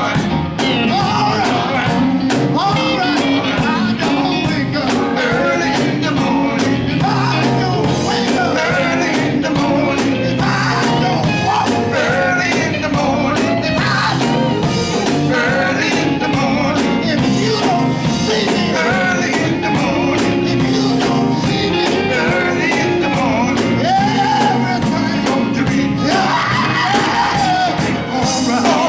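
Gospel quartet song: voices singing over a band with a steady drum beat.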